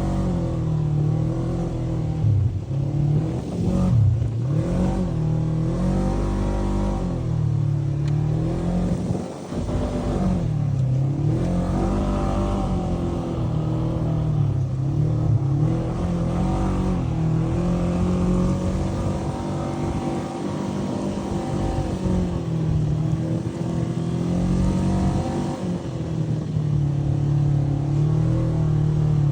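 Polaris RZR 900 UTV's twin-cylinder engine running under load on sand dunes. Its revs repeatedly drop and climb again as the throttle is eased and reapplied, with a brief lift-off about nine seconds in.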